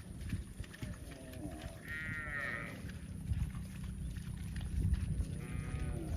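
Calf bawling: one wavering call about a second in lasting nearly two seconds, then another starting near the end.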